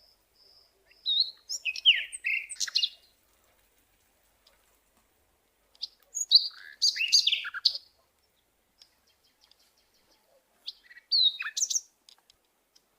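Birds chirping in three short spells of quick, high, sweeping calls, with quiet gaps between them.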